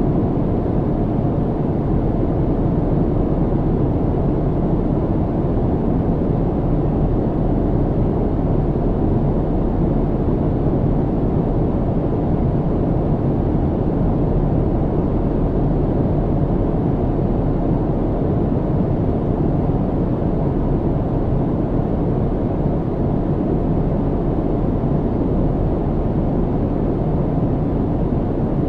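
Airplane cabin noise in flight: a steady low drone of engines and rushing air that does not change.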